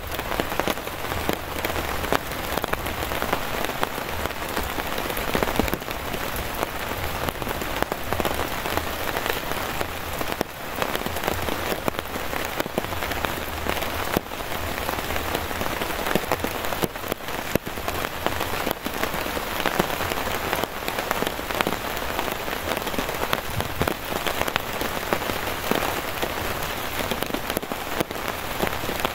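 Heavy, unbroken rain falling steadily on a canvas camping tarp overhead and the wet grass around it.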